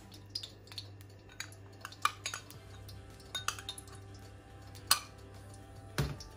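Scattered light clinks and knocks of kitchen dishes and utensils around a wok, the sharpest about two and five seconds in, with a duller thump near the end.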